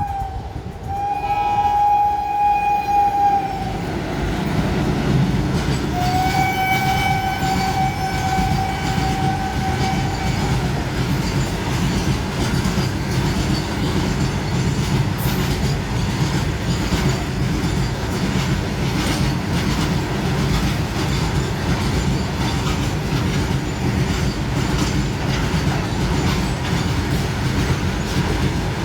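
Train horn sounding in long blasts, the last about four seconds long, then a train running past with a steady rumble and wheels clattering over the rail joints.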